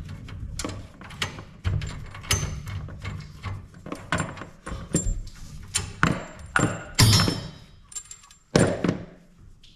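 Boiler pipe fittings being worked by gloved hands: irregular knocks, clicks and metal clinks, with a longer scraping rattle about seven seconds in as the braided flexible filling-loop hose comes free.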